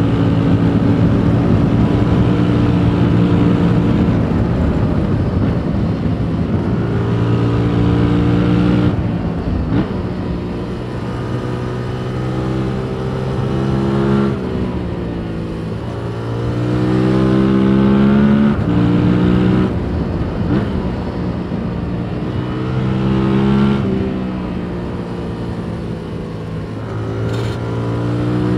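2021 Yamaha MT-07's 689 cc parallel-twin engine on its stock Euro 5 exhaust, heard onboard while riding. The engine pulls strongly for about nine seconds, then eases off. It then backs off and accelerates again twice, its pitch sliding down and then climbing through the revs.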